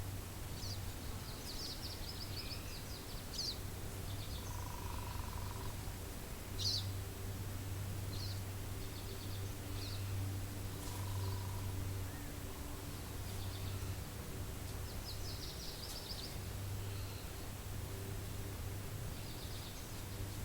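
Songbirds chirping, with several short rapid trills and a few softer held notes, over a steady low rumble of wind.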